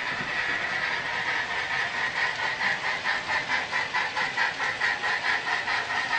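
HO-scale model train running on the layout, with a quick, even beat of about five a second over a steady high tone.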